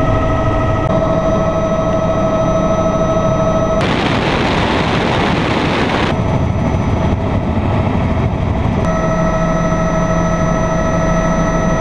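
Helicopter in flight: steady engine and rotor noise with a high whine. From about four to six seconds in, the whine gives way to a stretch of rushing wind noise on the microphone.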